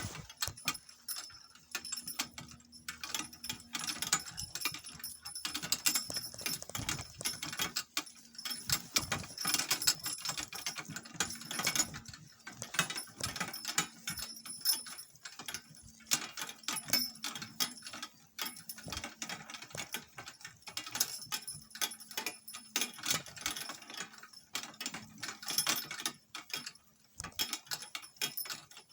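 Donkey-drawn cart on the move: the harness and cart fittings jingle, clink and rattle in a dense, irregular patter.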